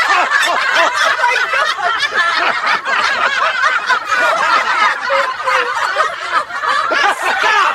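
Loud, unbroken laughter: a dense run of cackling laughs with no pause for breath.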